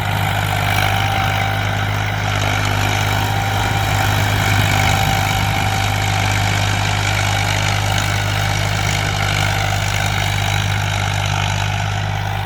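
Tractor engine running steadily with an even, unchanging low hum.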